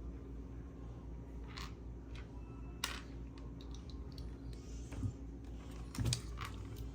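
Scattered light clicks and rattles of plastic Lego bricks being handled and pressed together, over a steady low hum.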